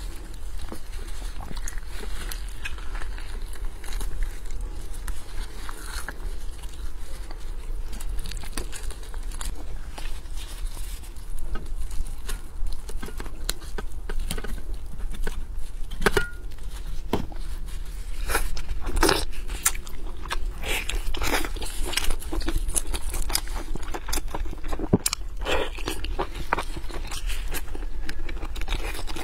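Close-up eating sounds of braised pork hock: wet, sticky tearing of the meat and skin with many small sharp clicks and crackles, then biting and chewing. The clicks grow denser and louder in the second half, over a steady low hum.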